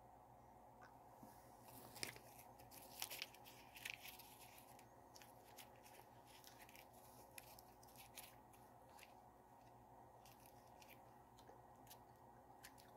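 Faint crinkles and small clicks, mostly about two to four seconds in, as a pouch of Big League Chew shredded bubble gum is handled and the gum is chewed.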